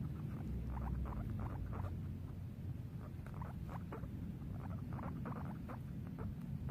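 Guinea pig giving a rapid run of short squeaks, a few a second, over a low steady rumble.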